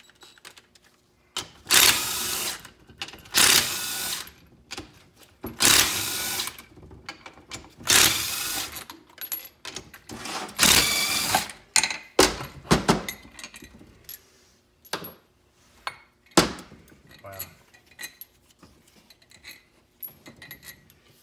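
Cordless power driver spinning out the bolts that hold a 4L60E transmission oil pump together, in five bursts of about a second each. After that come a few sharp metal knocks and clinks as the pump halves are separated.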